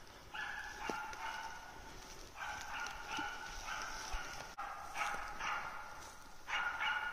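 A hunting bird dog barking in repeated runs of rapid, clear-sounding barks: it is baying at a game bird it can see, pretty surely perched in a tree, to hold it for the hunter.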